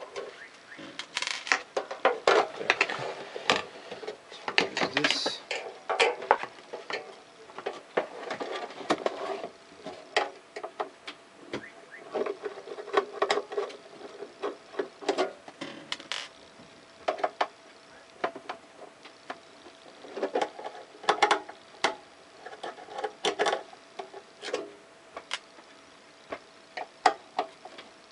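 Hand screwdriver backing out the screws of a UPS's sheet-metal case: an irregular run of small clicks, scrapes and light knocks, in clusters with short pauses between.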